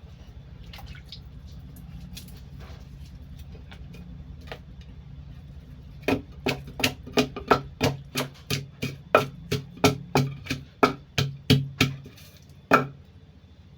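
A pestle pounding cassava leaves in a mortar: a run of sharp, evenly spaced strikes, about three a second, starting about six seconds in and lasting some six seconds, then one more strike near the end. A steady low hum and a few faint clicks come before the pounding.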